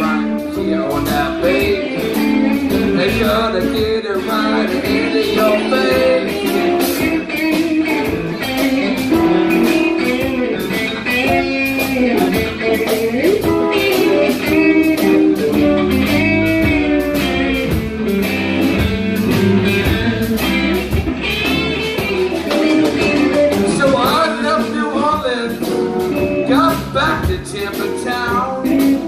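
Live blues band playing: electric guitar over bass and a steady drum beat.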